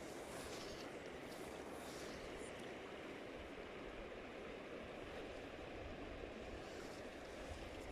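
Steady rushing of a braided river's current, with wind buffeting the microphone in a low, fluttering rumble.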